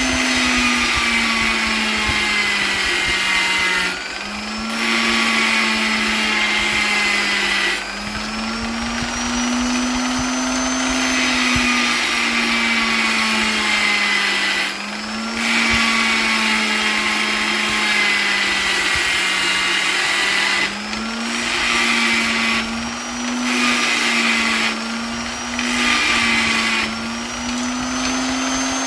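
Electric polisher motor running continuously with a steady whining hum. Every few seconds its pitch slowly sinks, then jumps back up after a brief quieter dip.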